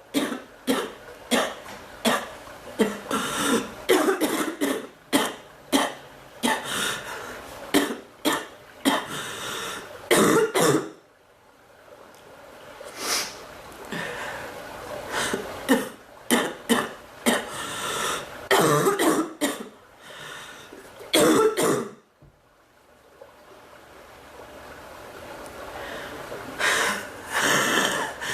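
A woman coughing over and over in fits of short, rapid coughs mixed with throat clearing, pausing twice between bouts.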